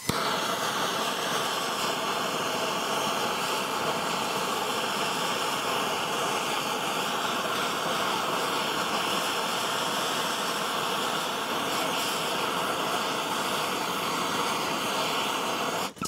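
Handheld blowtorch flame hissing steadily, its flame played on a padlock to melt it open.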